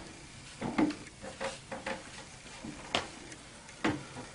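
Irregular light clicks and knocks as a scooter's front axle bolt is worked by hand through the wheel hub and fork, being jiggled into line. About five distinct knocks, the sharpest about a second in and near the end.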